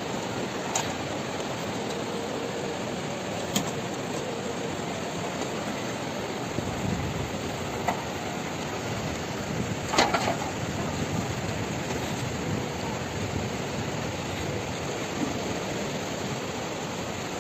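Steady rushing of a mountain river, with a few sharp knocks and clicks over it, the loudest about ten seconds in.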